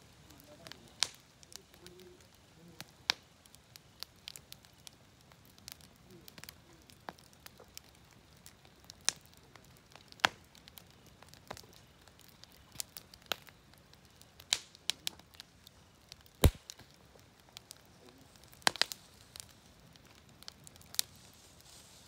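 Firewood burning in a campfire, crackling with irregular sharp pops over a low hiss; the loudest pop comes about 16 seconds in.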